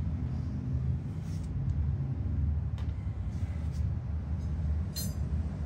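Low, steady background rumble, with a faint sharp click about three seconds in and another near the end.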